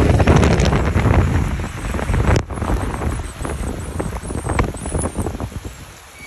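Heavy rain with wind rumbling on the microphone and drops striking close by as many irregular sharp taps, over the hiss of cars on the wet road. The wind rumble is loudest at the start and eases off.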